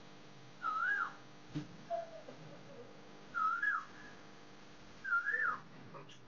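A short, high, whistle-like call repeated three times about two seconds apart, each rising and then falling in pitch. A single faint click comes about a second and a half in.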